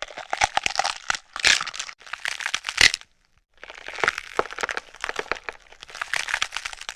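Bone-cracking sound effect: dense runs of crunching, snapping cracks, with a short break about three seconds in.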